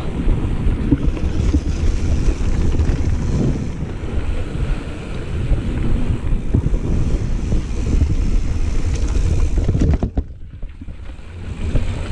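Wind buffeting the microphone of a handlebar-mounted camera on a mountain bike riding fast down a dirt singletrack, with tyre rumble and the bike's frequent knocks and rattles over bumps. About ten seconds in the noise drops for a second or so.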